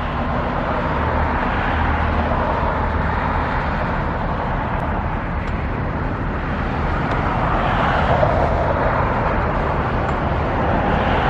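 Steady road traffic noise, with a vehicle passing about eight seconds in.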